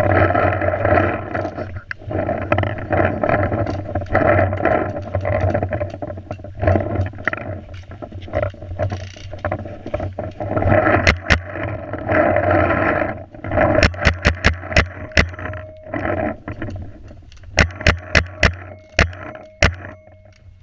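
Paintball markers firing in quick runs of sharp pops, about four shots a second, twice in the second half, over a continuous scuffing, rustling noise.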